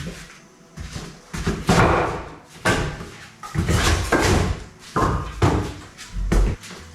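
Split firewood logs being stacked by hand: a string of irregular wooden knocks and thuds as the logs are set down against each other.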